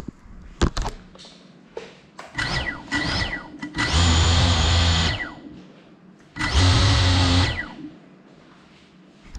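A 3.5-inch cinewhoop FPV drone's motors and propellers whirring in flight, with a few sharp clicks in the first second. The pitch sweeps downward a little before the middle, then comes two loud throttle punches, each about a second long, around four and seven seconds in.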